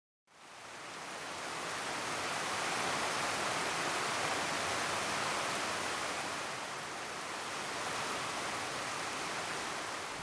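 Mountain stream rushing over rocks: a steady, even rush of water that fades in over the first second or two.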